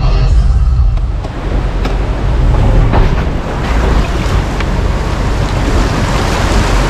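Pickup truck driving a wet, rough off-road trail: a steady low rumble of engine and tyres under a loud rushing, surf-like noise, with a few faint knocks.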